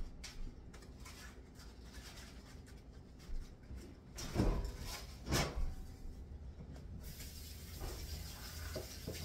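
Wire whisk stirring dry flour in a glass bowl: faint scraping and light ticks, with two louder knocks about four and a half and five and a half seconds in. A steady hiss comes in near the end.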